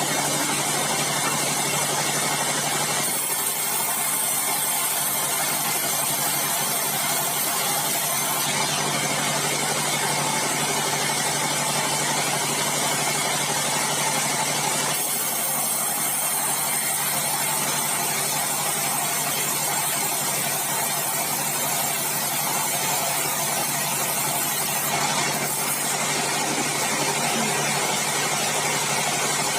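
Sawmill bandsaw machinery running steadily: a constant engine-like hum under a dense hiss of mechanical noise. The upper hiss turns brighter and duller a few times.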